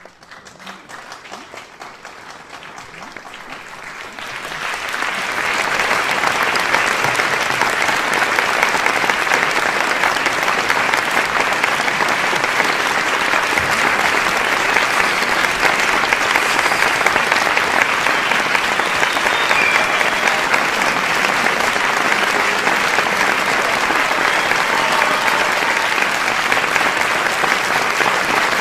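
A large audience applauding with voices among the crowd. The applause builds over the first five seconds, then holds as steady, dense clapping.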